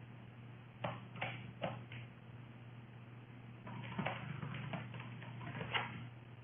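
Faint computer keyboard keystrokes as code is typed: three taps about a second in, then a looser run of taps later, over a low steady hum.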